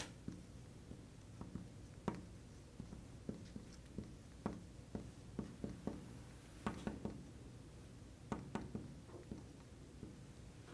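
Felt-tip marker writing on a glass lightboard: faint, irregular taps and squeaks as the tip touches down and moves across the glass.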